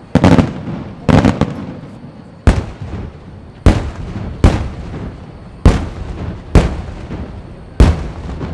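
Fireworks display: a run of about eight loud booms from aerial firework shells, roughly one a second. Each boom is sharp and fades away slowly, with some crackle in the first second or so.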